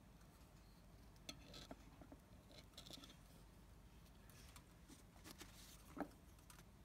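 Near silence with faint handling noises from fingers working fishing line and a hook: soft scratchy rustles and small clicks in a few clusters, then one sharper click about six seconds in.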